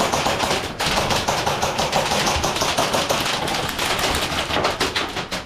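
Airsoft guns firing semi-automatic in a close-range exchange: a steady stream of sharp clacks, several shots a second, with overlapping shots from more than one gun.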